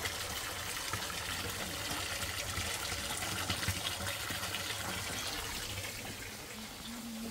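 Steady rush of running water, like a tap or hose pouring, easing slightly near the end.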